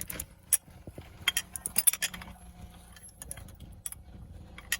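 Light metal clinks and clicks at irregular intervals, a dozen or so, from hand tools and loose hub bolts being handled.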